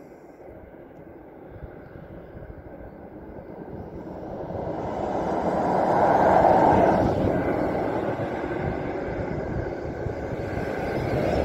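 A vehicle passing, its rushing noise swelling to a peak about six seconds in and easing off, then rising again near the end.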